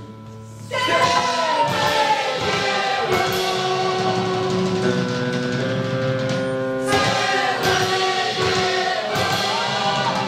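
A live stage band with several voices singing together over held instrument notes, coming in loudly about a second in after a quieter opening.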